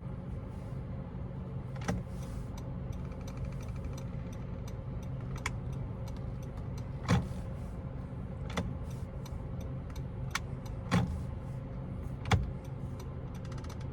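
Steering of a 5th-generation Honda City giving a series of sharp, irregular crackling clicks as the wheel is turned with the indicator on, over the steady low hum of the car. The service station called the noise normal.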